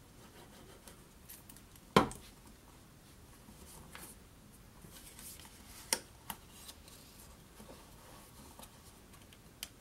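Hands handling a card box and a strip of paper on a wooden tabletop: quiet rubbing and rustling as the paper is wrapped and pressed on. There is a sharp knock about two seconds in and smaller taps around six seconds.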